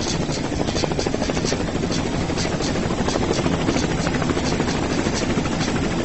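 Helicopter rotor beating in a steady, rapid rhythm.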